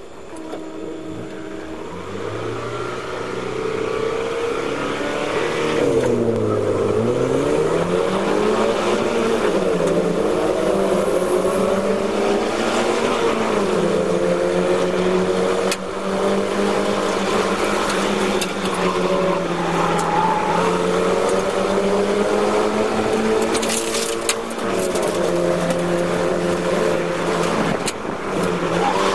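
Mazda MX-5 race car's four-cylinder engine heard from inside the cockpit, pulling away from a standing start and accelerating hard, its pitch rising and dropping back a few times at the gear changes.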